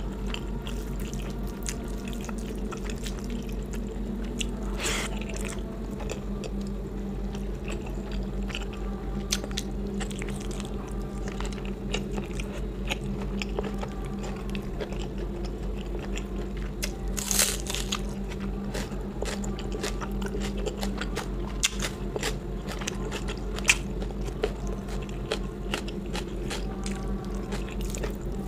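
Close-miked eating: a person chewing and biting food, with many small scattered clicks and one louder noise about 17 seconds in, over a steady low hum.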